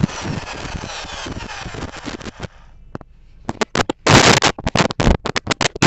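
Corded electric drill winding down after drilling into brick with a homemade nail bit, its whine falling and fading over about two and a half seconds. Then, from about three and a half seconds, loud irregular crackling and scraping as the drill chuck and bit are handled close to the microphone.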